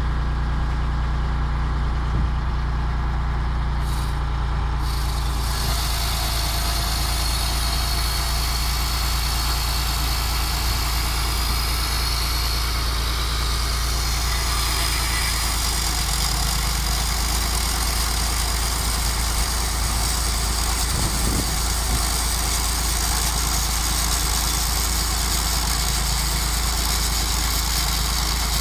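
Tractor diesel engine running steadily, driving a PTO-powered chainsaw-bar firewood cutter. From about five seconds in, a steady high hiss of the saw chain cutting through logs joins it.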